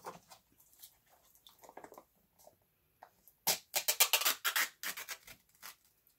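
Packaging of a plastic dessert cup being handled and peeled open: soft rustling, then a burst of crinkling and crackling about three and a half seconds in that lasts around two seconds.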